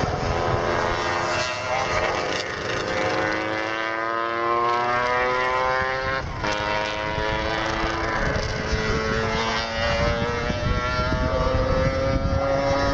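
Racing motorcycle engines passing on the circuit, their note climbing through the revs, dropping sharply at a gear change about six and a half seconds in, then climbing again. Wind buffets the microphone throughout.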